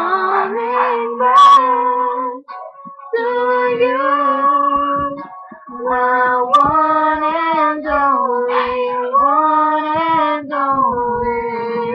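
Two girls singing a slow ballad together into a webcam microphone, with long held, gently wavering notes and short breaths about two and a half and five and a half seconds in.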